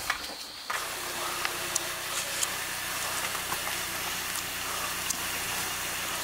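Car engine idling: a steady low hum under a hiss, with a few light knocks.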